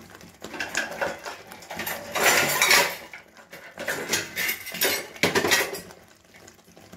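Kitchen utensils and cookware clinking and clattering in two bouts, the louder one about two to three seconds in.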